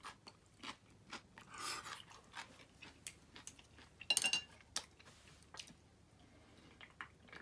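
A person chewing food with soft crunches, amid scattered small clicks and taps at the table; a brief louder clatter comes about four seconds in.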